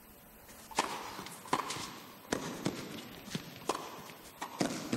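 Tennis ball being served and then rallied: a string of sharp knocks from racket strikes and bounces, starting about a second in and coming every half second to a second, each with a little hall echo.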